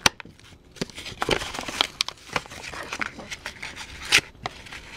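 Cardboard backing card being peeled and torn away from a plastic blister pack, with irregular crackles and crinkles of the card and plastic. A louder crackle comes about four seconds in.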